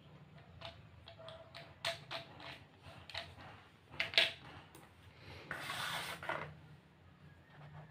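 A plastic drill side handle being handled and set down on a hard floor: a string of light clicks and knocks, the loudest about four seconds in, then a rubbing scrape lasting about a second.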